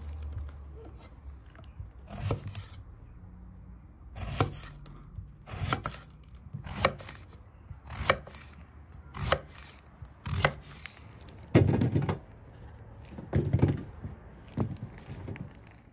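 Kitchen knife slicing an eggplant into thick rounds on a wooden cutting board: a crisp cut and knock of the blade on the board about once a second, a dozen or so times.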